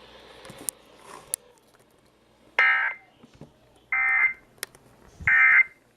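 Emergency Alert System end-of-message signal: three short bursts of warbling SAME digital data tones, each about half a second long and a little over a second apart, marking the close of the EAS test. A couple of faint clicks come in the first second and a half.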